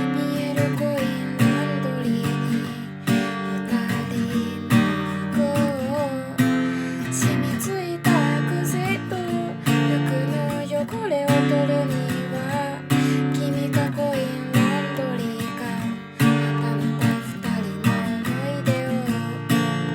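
Acoustic guitar strummed in a steady rhythm, with a voice singing a wavering melody over the chords.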